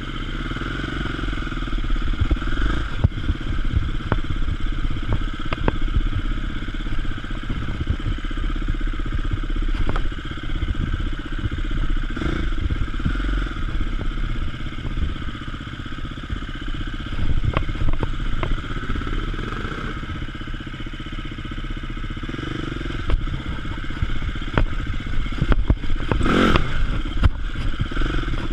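Enduro motorcycle engine running at low, uneven revs while the bike picks its way over rocks and ruts, with scattered knocks and clatter from the bike jolting over the stones. A louder bang stands out about 26 seconds in.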